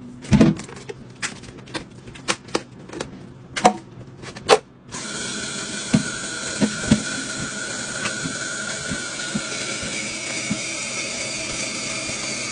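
Knocks and clatter of a packaged chicken tray being handled in a stainless steel sink. About five seconds in, the kitchen faucet is turned on and water runs steadily into a plastic colander as raw chicken legs are rinsed under it, with a few soft knocks from the handling.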